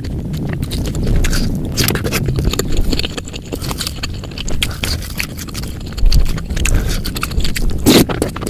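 Close-miked eating of bakso, Indonesian meatballs in spicy broth: chewing with many irregular short clicks and smacks.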